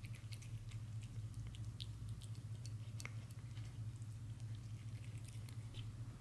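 A cat eating tuna from a plate: quick, irregular small clicks of licking and chewing, over a steady low hum.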